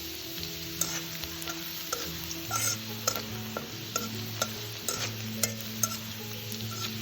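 Food frying and sizzling in a pan while it is stirred, a utensil striking and scraping the pan about twice a second.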